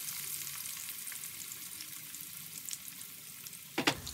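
Sliced onions sizzling and crackling in hot oil in a frying pan, the sizzle slowly getting a little quieter. A single short, loud knock comes just before the end.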